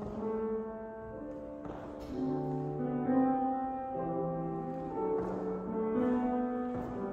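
Classical orchestral music with held notes in a horn-like brass timbre, the harmony changing every second or so.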